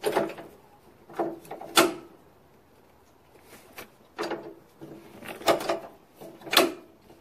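Steel plow-hitch bracket and rod knocking and clanking against a garden tractor's deck lift bracket as they are fitted by hand: about seven irregular sharp metal clanks.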